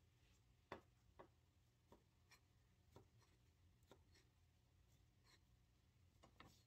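Faint, irregular knife taps on a plastic cutting board, about ten light knocks, as a long sashimi knife cuts slices from a skin-on red sea bream fillet.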